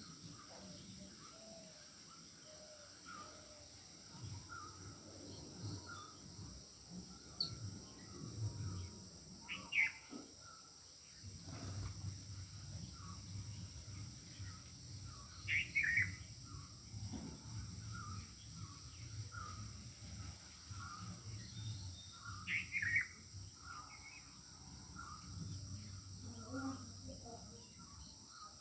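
Outdoor ambience: small birds chirping over and over, with three louder calls spaced about six seconds apart, over a steady high insect drone. A soft low rustle runs underneath.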